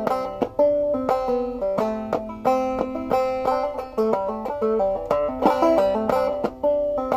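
Five-string banjo played clawhammer style in double C tuning, picking out a fiddle tune in a steady bouncing rhythm, with plucked melody notes ringing against a repeated drone string.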